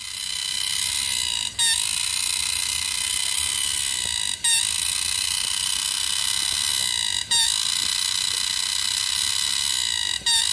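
Green cicada singing: a loud, shrill, continuous buzz that swells up over the first second and breaks off for a moment about every three seconds before resuming.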